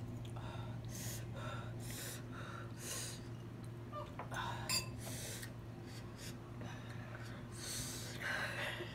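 Short, sharp breaths drawn in and blown out through the mouth, about seven at irregular intervals: a person cooling a mouth and lips burning from very spicy instant noodles.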